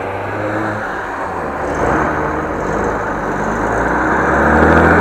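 Road traffic driving through a junction: cars and a flatbed truck passing with engine hum and tyre noise, loudest near the end.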